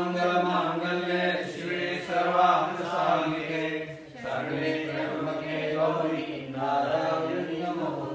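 Voices singing a Hindu aarti hymn together in sustained, chant-like phrases.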